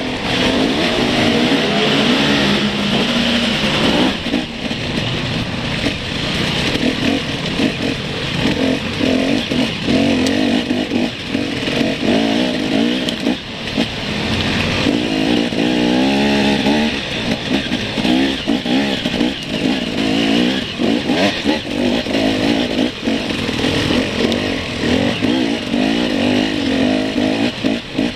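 Enduro dirt bike engine heard close up, running continuously with the revs rising and falling as the throttle opens and closes through the gears on a dirt trail, with a couple of brief dips where the throttle is shut.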